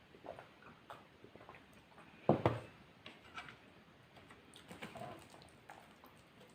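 A person eating close to the microphone: scattered small mouth and chewing clicks, with one louder burst a little over two seconds in.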